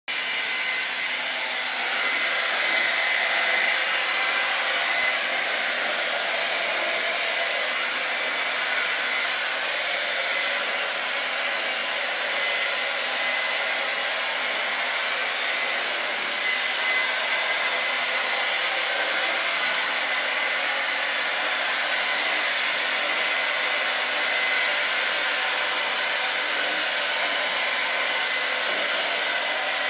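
Hair dryer running steadily: a constant rush of blown air with a faint steady whine.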